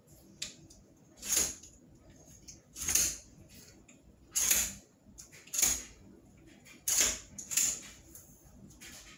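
A new metal crutch being worked and adjusted by hand: six short scraping rattles at uneven gaps of about one to one and a half seconds.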